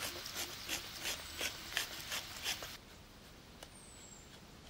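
Wooden hand grinder being twisted to grind salt, a series of short crunching grinds about three a second that stop about two and a half seconds in.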